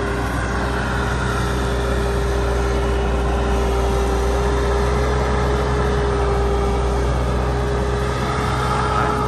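Caterpillar hydraulic excavator's diesel engine running steadily under working load, with a steady whining tone over the low drone, as the machine swings a bucket of dirt to a dump truck and back.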